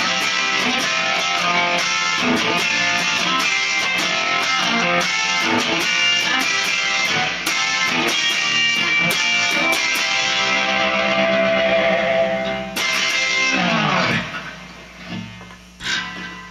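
1964 Epiphone Casino hollow-body electric guitar, with its P-90 pickups, strummed in quick rhythmic chords. About ten seconds in, a chord is left to ring. Around fourteen seconds it fades out, leaving a steady hum and a couple of soft knocks.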